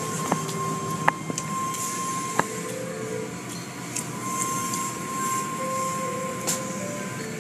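Automatic car wash machinery running: a steady mechanical noise with spraying water, a thin steady tone that comes and goes, and a few sharp clicks.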